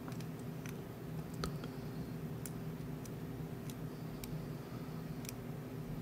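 Faint, irregular metallic clicks of a dimple pick working the pins inside a Yardeni six-pin dimple lock cylinder under a tension wrench, over a steady low hum.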